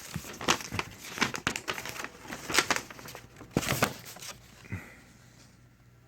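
Packing material crinkling and rustling as parts are lifted out of their box, a run of irregular crackles that dies away about four and a half seconds in.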